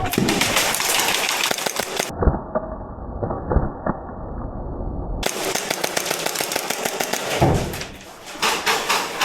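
Airsoft guns firing in rapid bursts of clicking shots, mixed with the clatter of players moving. For about three seconds in the middle the sound goes muffled, its high end gone.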